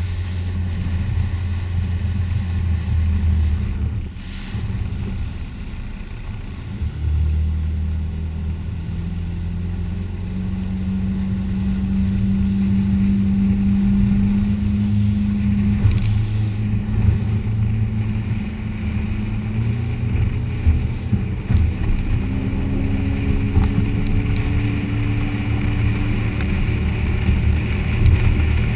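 Motorboat engine running under way, with water rushing past the hull and wind on the microphone. The engine note dips about four seconds in, picks up again a few seconds later, and climbs slowly through the second half as the boat speeds up.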